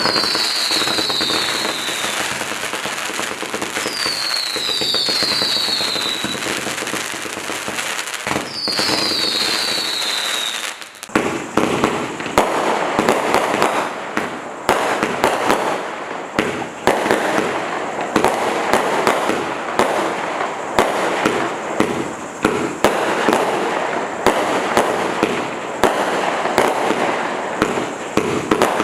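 Black Cat Pyro Pandemonium compound firework cake going off. For about the first eleven seconds there is a steady hiss with a few falling whistles. After that come rapid, closely spaced shots and crackling bursts.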